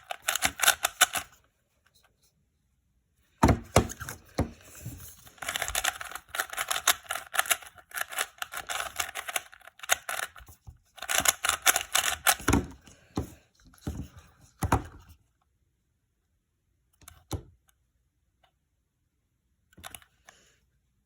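Plastic Rubik's Impossible cube being turned and handled: runs of rapid clicking and clacking with short pauses, then a few single clicks near the end.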